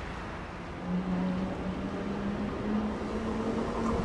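SBB Re 450 electric locomotive's traction drive whining as it accelerates, a steady tone that begins about a second in and rises slowly in pitch, with a second higher tone joining near the end, over rail and yard noise.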